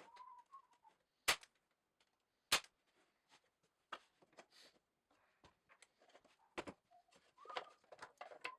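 Two sharp clicks a little over a second apart, then scattered lighter clicks and taps, like small objects being handled.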